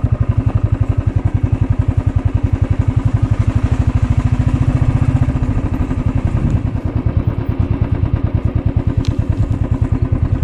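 Motorcycle engine running at low speed with rapid, even pulsing; the note changes slightly a little past halfway through.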